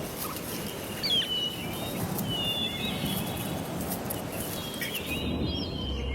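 Wild birds giving several short chirps and whistled calls over a steady rushing background ambience. Music comes in near the end.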